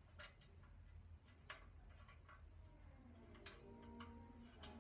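Faint, irregular metal clicks and ticks of trumpet valve caps being screwed back onto the valve casings.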